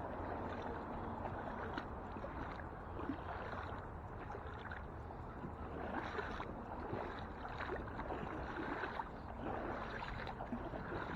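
Steady rush of flowing river water, with faint irregular crackles through it.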